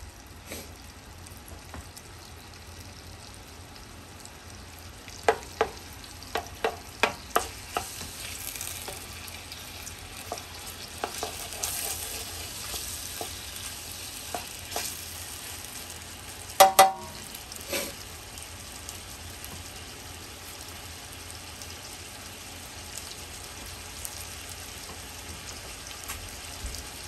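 Cubed pork browning in hot oil in a pot, sizzling steadily. A quick run of about seven clacks comes a little after five seconds in, and a louder double knock and one more clack follow a little past the middle; these are the stirring utensil striking the pot.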